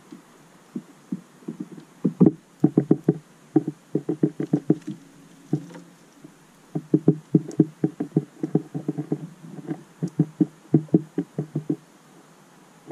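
Finch feeding at a tube seed feeder, its beak knocking against the feeder as it pecks seed: rapid, irregular runs of short dull knocks with brief pauses between them.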